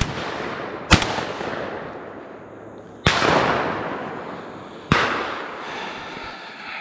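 Shotgun shots, four of them: one at the very start, then about one, three and five seconds in. Each shot is followed by a long rolling echo that slowly fades.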